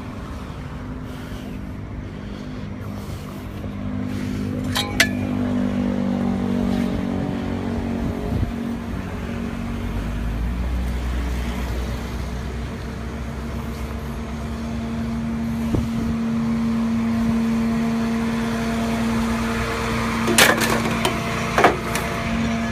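Motor vehicle engine idling with a steady low hum. A few sharp clicks or knocks come through, once about five seconds in and twice near the end.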